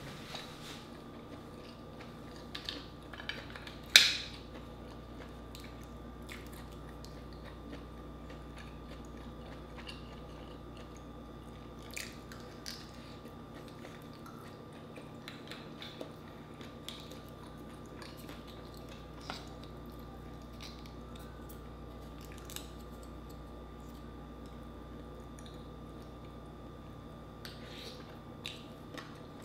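Close-up eating sounds of a person chewing cooked mussel meat, with scattered sharp clicks, the loudest about four seconds in. A faint steady hum runs underneath.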